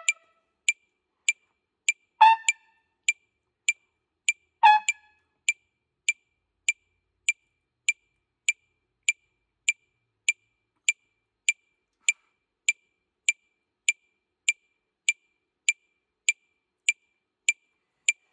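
A metronome ticking steadily, about a hundred clicks a minute, with three short trumpet notes in the first five seconds. After the notes, only the clicks go on.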